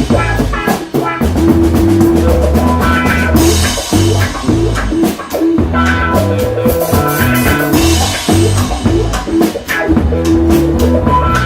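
Funk-rock band jam: drum kit keeping a steady dance beat under a repeating bass line and guitar.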